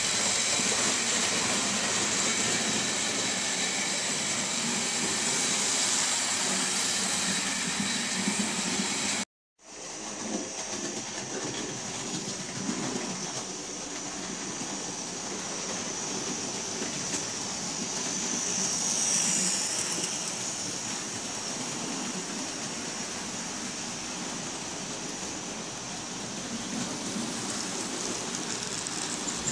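Model railway trains running along the track, a steady noise of wheels on rail and small electric motors. It breaks off in a short silence about nine seconds in, then carries on quieter.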